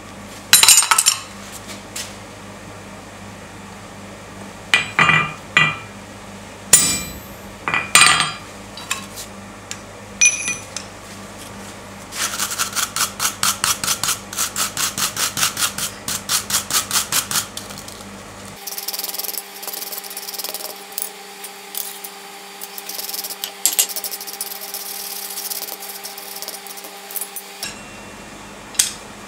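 A few separate hammer blows on a chisel set into red-hot steel on the anvil, then a hand wire brush scrubbing the hot metal in quick even strokes, about two or three a second. After that comes a steadier hiss with a faint hum.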